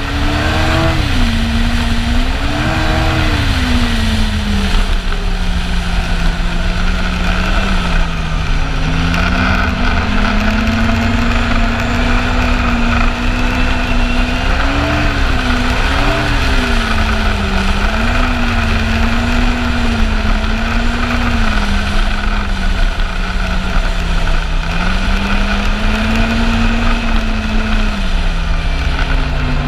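Yamaha Apex snowmobile's four-stroke engine running under way. Its pitch rises and falls repeatedly as the throttle is eased and opened, over a heavy, steady low rumble.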